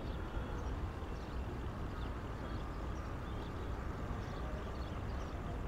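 Wind buffeting the microphone in a steady low rumble, with a few faint bird chirps scattered through.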